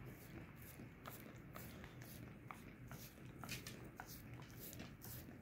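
A small dog licking a bare foot: faint, irregular wet lick clicks, about two a second.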